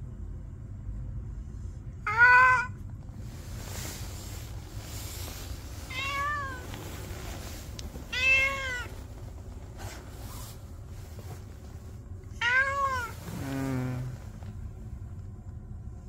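A cat meowing about four times, each a short call that rises and falls in pitch, the last one running into a lower, falling call, over a steady low background hum.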